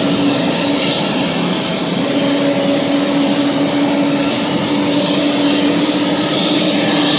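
Boeing 777-300ER's GE90 jet engines running at taxi power as the airliner lines up on the runway: a steady roar with a low hum running through it.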